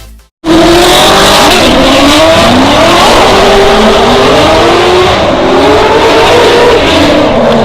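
Car engine revving hard, its pitch rising and falling again and again, over loud tyre noise, as in drifting. It starts abruptly about half a second in.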